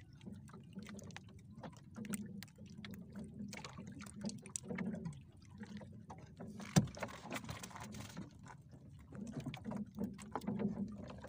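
Small fishing boat at sea: a steady low rumble of water against the hull, with scattered small knocks and one sharp knock about seven seconds in.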